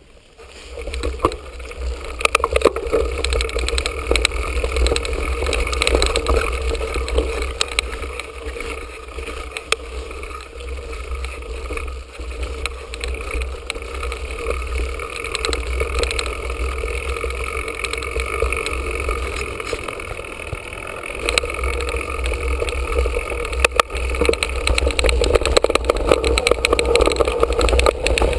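Mountain bike rolling down a dirt and gravel trail, heard from a camera mounted on the bike: wind rumbling over the microphone, tyre noise on the loose surface, and the bike rattling with frequent sharp knocks over bumps. It grows louder and rougher about two-thirds of the way through.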